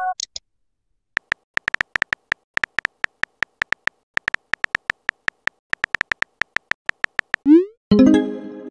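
Texting-app keyboard sound effects: a quick run of soft key clicks starting about a second in, then near the end a short rising swoosh and a bright electronic chime as the message is sent.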